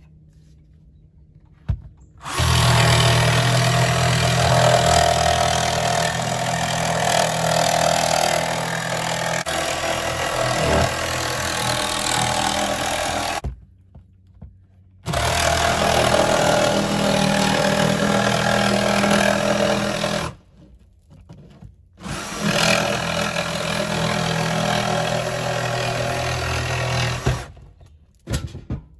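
Cordless jigsaw cutting through the cabin's wood wall siding in three long runs with short pauses between them, the motor running at a steady pitch under the rasp of the blade.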